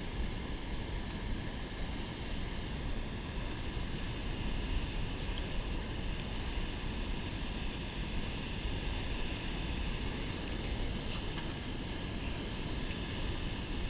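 Steady rushing of water pouring over a river spillway, mixed with low wind rumble on the microphone.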